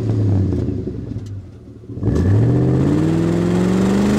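Car engine running at a steady note, dropping off about a second and a half in, then accelerating from about two seconds in with its pitch climbing steadily.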